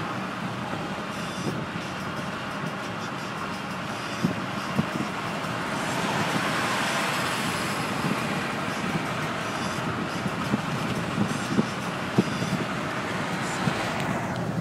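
Road and tyre noise heard inside a car's cabin at highway speed: a steady rush that swells for a couple of seconds midway, with a few short knocks.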